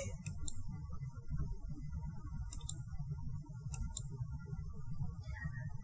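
Computer mouse clicking three times in quick pairs over a low steady room hum, the clicks advancing the presentation slides.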